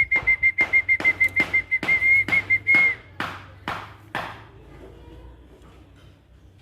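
Quick hissing squirts of water, about three a second and then a few more spaced out, with a steady high whistled note held over the first three seconds and then stopping.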